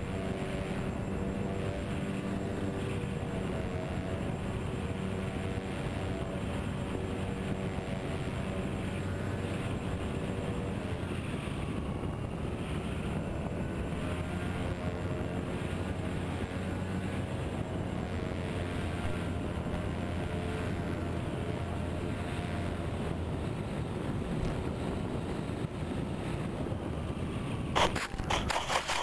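Twinstar RC plane's twin electric motors and propellers droning steadily in flight, heard from the onboard camera. Near the end comes a sudden impact and hissing scrape as the plane belly-lands into the snow.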